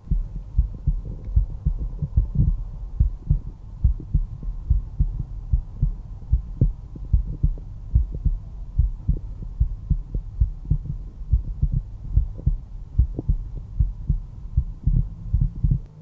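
A resting human heart heard through a stethoscope over the mitral area: a regular lub-dub, each beat a pair of low, dull thumps.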